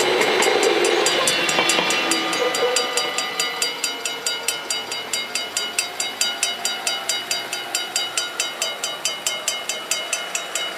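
Mechanical bells of a Dutch level crossing ringing in a rapid, steady rhythm of about five strikes a second, while an Arriva GTW diesel train passes and its rumble fades over the first few seconds. The bells keep ringing as the barriers rise, the sign that the crossing is clearing after the train.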